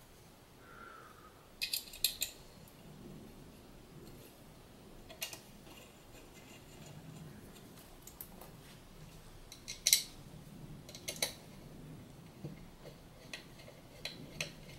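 Scattered sharp metallic clicks and clinks of a hand tool and screws being handled while the screws of a stepper-motor mount are tightened by hand: a quick cluster about two seconds in, the loudest about ten seconds in.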